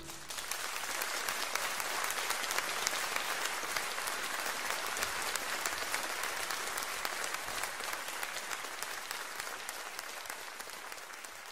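Audience applauding, the clapping steady at first and then gradually dying away over the last few seconds.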